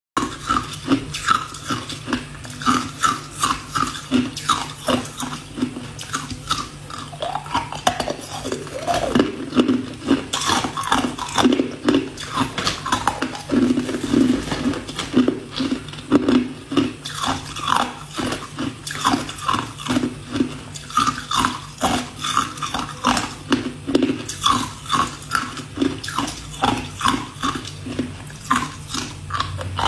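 Ice cubes crunched between the teeth and chewed up close to the microphone: a continuous run of sharp crunches, about two to three a second.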